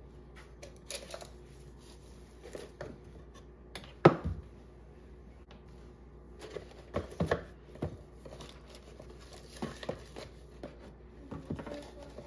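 Household items being handled and put away: scattered light clicks and knocks with some crinkling, and one sharper knock about four seconds in.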